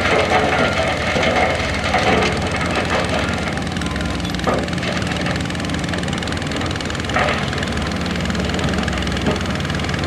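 Diesel engine of heavy earthmoving machinery running steadily, with several short clanks and rattles, the clearest about halfway through and again later on.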